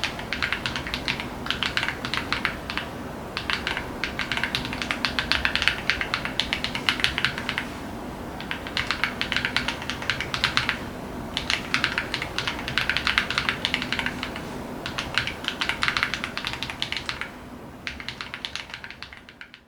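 Typing on a Wooting 80HE keyboard with GravaStar UFO magnetic Hall-effect switches, a polycarbonate plate, a KBDfans GT-80 case and PBT Cherry-profile keycaps: quick runs of keystrokes broken by short pauses. The sound fades out near the end.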